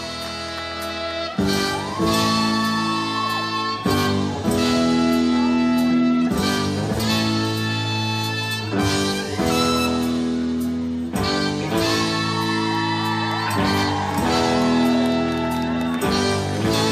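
Live rock-and-roll band playing an instrumental intro: held horn and guitar chords over bass and drums, with the chord changing every two to three seconds on a sharp hit.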